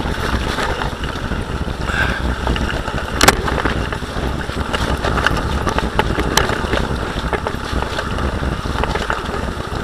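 Bicycle riding fast along a woodland dirt trail: steady rush of wind on the microphone with tyre and frame rattle, and a few sharp knocks from bumps, the loudest about three seconds in.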